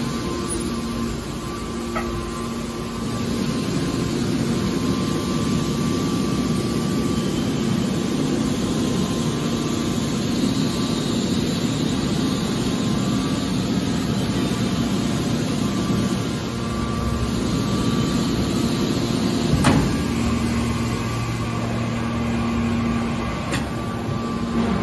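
Steady industrial machine hum with a low tone and a fainter higher whine. A single sharp click comes about twenty seconds in.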